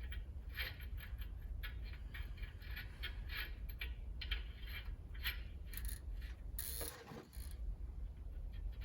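Ratchet wrench clicking in quick repeated runs as nuts are run onto the oiled right-hand-threaded wheel studs of a truck's front hub, with a short louder rasp about seven seconds in.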